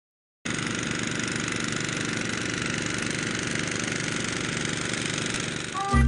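A motor-driven machine running steadily with an even hum and hiss. It cuts in suddenly about half a second in. Music with a strong beat starts right at the end.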